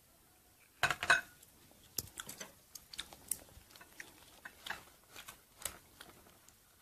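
A ceramic bowl is set down with a clatter about a second in. Then chopsticks toss crisp lettuce and herbs in a bowl, rustling with small clicks against the bowl.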